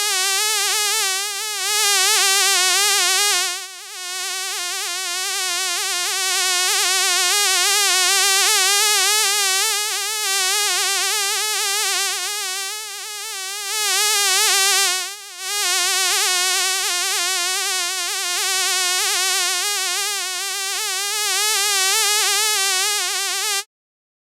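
A fly buzzing in flight: a continuous buzz whose pitch wavers quickly up and down, dipping briefly twice, then cutting off shortly before the end.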